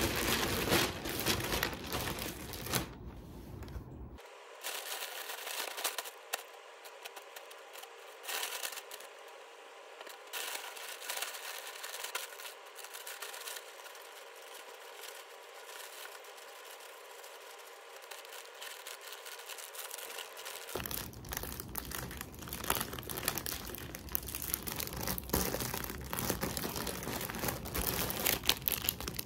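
Clear plastic zip-top storage bags crinkling and crackling in quick irregular bursts as folded clothes are packed into them and pressed flat by hand.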